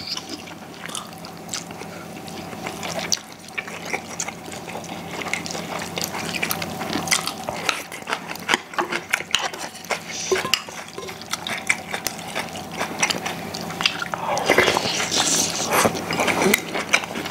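Two people eating at the table: chewing and slurping of soup and rice, with chopsticks and spoons clicking against ceramic bowls. The mouth sounds get louder and denser near the end.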